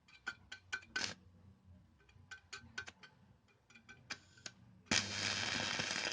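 Arc welding with a homemade self-oscillating SMPS inverter welder: a series of sharp crackling clicks as the electrode is struck against the metal, then, near the end, a loud steady arc crackle held for about a second before it cuts off.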